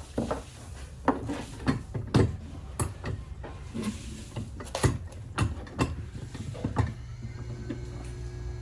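Irregular wooden knocks and clunks, more than a dozen spread over several seconds, from cabinet parts being handled and fitted, over a steady low hum.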